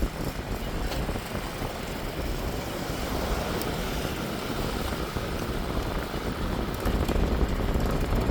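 A car driving along a road: a steady rumble of road and engine noise.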